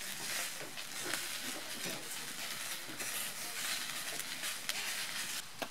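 Whole trout in hinged wire grill baskets sizzling over a wood fire: a steady hiss with a few small crackles.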